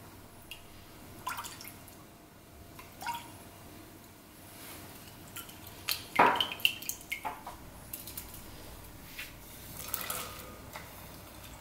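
Liquid seasonings poured and trickling into a glass mixing bowl, with a few light glass clinks. About six seconds in, a wooden spoon knocks and scrapes against the glass bowl while stirring the sauce, a quick run of knocks that is the loudest part. Near the end, shredded vegetables slide in from a metal dish.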